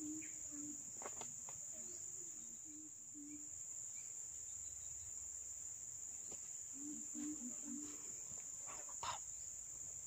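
Steady high-pitched insect chorus, with two runs of short low notes, one at the start and one about seven seconds in, and a few brief rustles.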